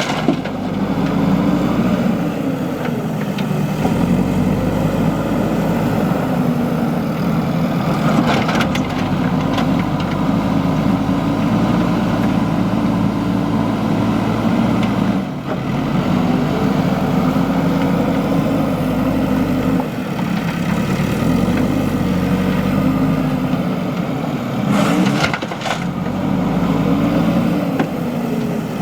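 JCB 3DX backhoe loader's diesel engine running under load, its pitch rising and falling over and over as it works the loader arm and bucket. A few sharp knocks come through, about three times.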